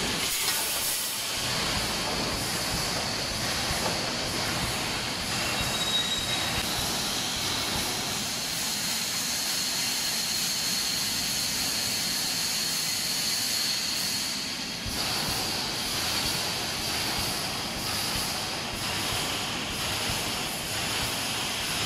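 Automatic wire mesh welding machine running: a steady industrial din with hiss and a thin high whine held through much of it, with faint irregular knocks.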